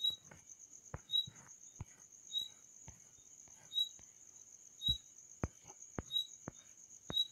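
An insect trilling steadily at a high pitch, joined by short chirps about once a second, with scattered sharp clicks.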